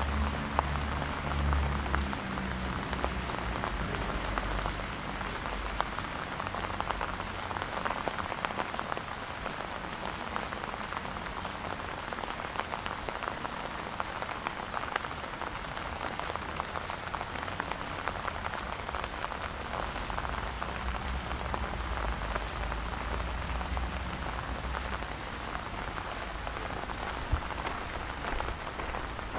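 Steady rain falling, with many close individual drops pattering.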